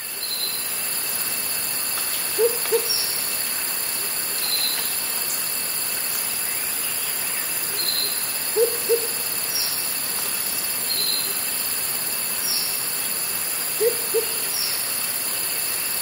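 Evening rainforest ambience: cicadas stridulating in a steady high-pitched chorus of several constant tones, with birds giving short descending chirps every few seconds. A low two-note hoot sounds three times, about every five and a half seconds, and is the loudest thing heard.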